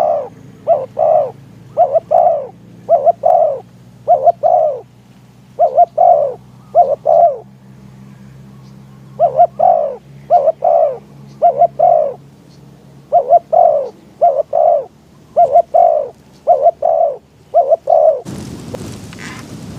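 Spotted dove cooing over and over, in repeated phrases of two or three coos. Near the end a loud steady rushing noise takes over.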